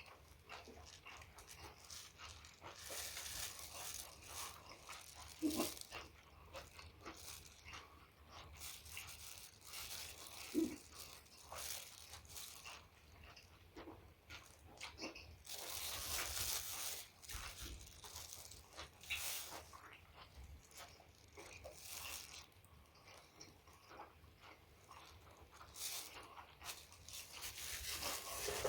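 A person eating close to the microphone: chewing and crunching in irregular bursts, with a few sharp mouth pops, the loudest about five and ten seconds in.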